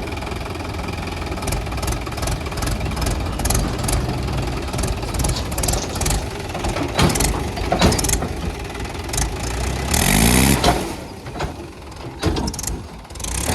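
Diesel machinery working: a heavy engine running steadily with repeated sharp clanks and knocks, and a short rising rev about ten seconds in.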